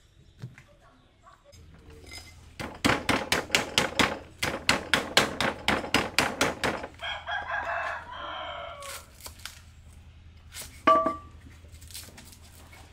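A knife chopping on a wooden chopping block, about four quick strikes a second for some four seconds, then a rooster crows once. A single loud, ringing knock comes near the end.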